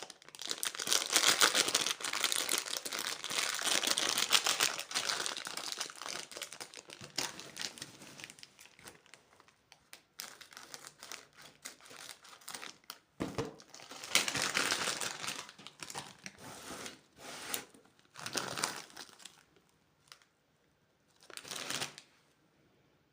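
Plastic candy wrappers being handled and crinkled: dense crackling for the first several seconds, then scattered short bursts of crinkling, the last a little before the end.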